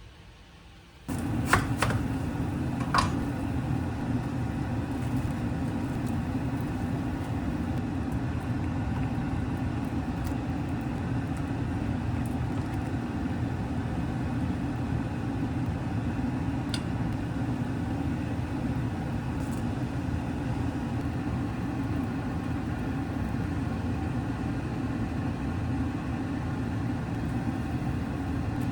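A steady low mechanical hum, like a fan or motor, starts suddenly about a second in and runs on evenly, with a few sharp clicks shortly after it begins.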